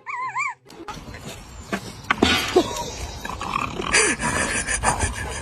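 A dog makes a brief wavering whine, then growls roughly and noisily, with a few short falling yelps.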